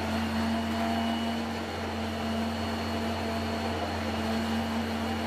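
A steady low mechanical hum under an even hiss, unchanging throughout.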